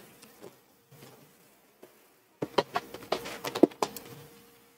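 Quiet at first, then from about halfway a quick run of light taps, clicks and rustles as leather and a paper pattern are handled on a worktable, over a faint steady hum.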